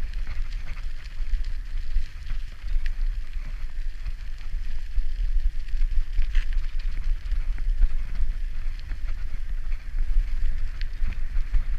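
Riding a bicycle on a rough, wet lane: wind buffeting the camera microphone as a steady low rumble, over tyre noise and scattered small clicks and rattles from the bike.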